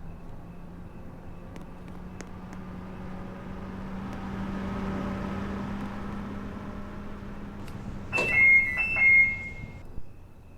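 Car alarm system on a Toyota Camry sounding two short, loud chirps, each stepping down in pitch, over a steady low hum.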